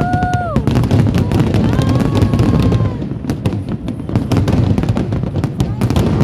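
Fireworks bursting in a dense barrage of rapid bangs and crackles. Crowd voices call out over it in two long held cries, one at the start and one about two seconds in.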